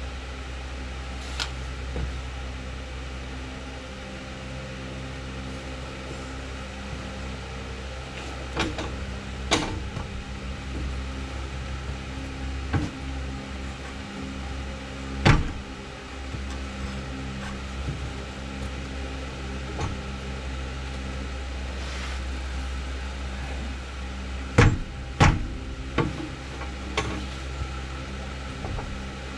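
Scattered sharp metallic knocks and clunks from the rear suspension, the loudest about halfway through and two close together near the end, as the knuckle is forced with a boot to line up a new rear control arm. Underneath runs a steady low hum.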